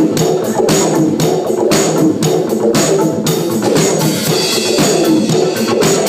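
Live band music: a drum kit played in a quick, steady beat, about four strikes a second, over held keyboard or synthesizer notes.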